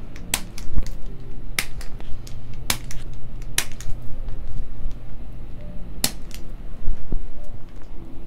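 Handheld spring-loaded chiropractic adjusting instrument firing on the legs: sharp single clicks, four loud ones in the first four seconds and another about six seconds in, with fainter clicks between.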